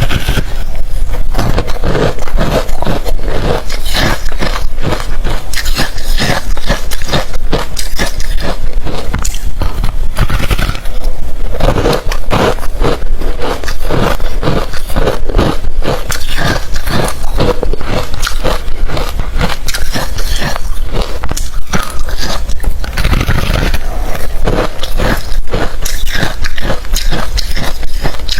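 Close-miked chewing of hard refrozen crushed ice: rapid, loud crunching and cracking as the ice is bitten and ground between the teeth, one crunch after another with no pause.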